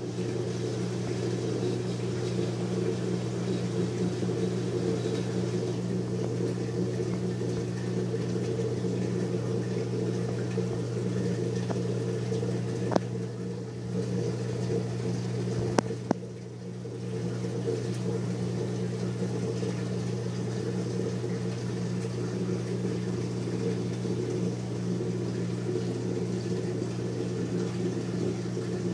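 Steady electrical hum of reef-aquarium pumps running, with two faint clicks about halfway through.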